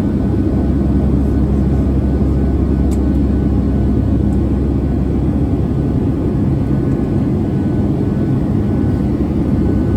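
Steady low roar of a Boeing 757-200 in flight, its engine and air noise heard from inside the passenger cabin.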